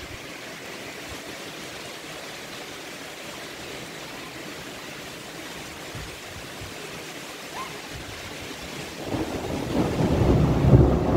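Rain falling steadily in a storm, an even hiss, with a louder low rumble building about nine seconds in.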